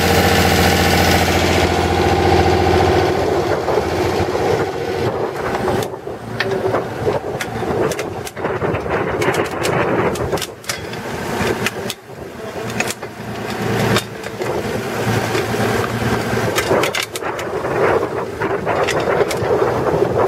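Diesel engine of a JSW Nikko BH45 excavator running steadily. From about three seconds in, the even engine note gives way to a rougher, uneven noise with scattered clicks and knocks.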